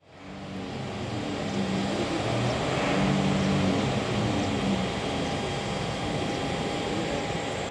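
An Airbus A319's jet engines running loud, a dense rush of noise with a steady whine in it. It fades in at the start, swells over the first three seconds, then eases slightly.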